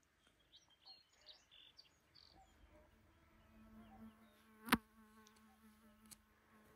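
A flying insect buzzing with a steady low hum, starting about three seconds in. A single sharp click just before five seconds in is the loudest sound, with faint high chirps in the first couple of seconds.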